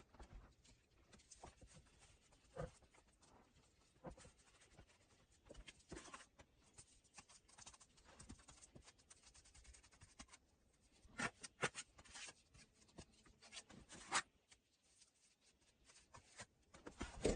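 Faint, scattered scrapes and taps of dried mud bricks being set in place on mud mortar, with a few sharper clacks about two-thirds of the way through and near the end.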